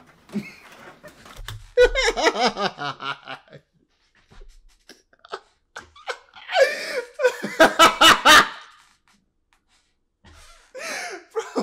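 A man laughing in several bursts, loudest and longest from about six to eight and a half seconds in.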